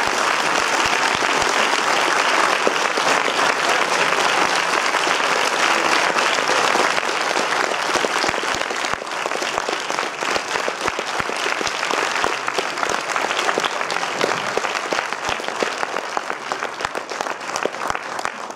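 Audience applauding in a cinema hall: many hands clapping in a dense, steady wash that thins out about halfway through into more separate claps and fades near the end.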